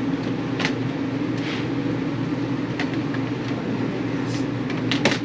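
A steady low machine hum fills the trailer, with a few light clicks and clinks as small items are handled and set down on the table, the loudest just before the end. There are also two brief soft hisses.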